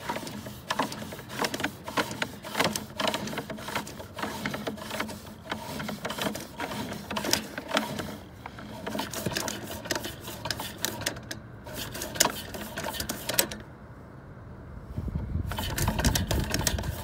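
Sewer inspection camera's push cable being pulled back through its reel by hand, a fast irregular clicking and rattling. It stops for a couple of seconds near the end, then starts again.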